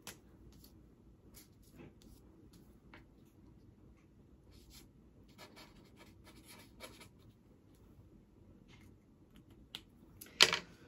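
A pen signing a paper card: faint scratchy strokes and small clicks of handling, with one louder sharp knock near the end.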